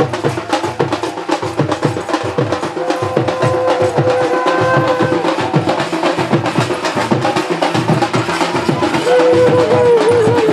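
Loud music of fast, dense drumming, with a wind instrument holding wavering melody notes in a couple of stretches.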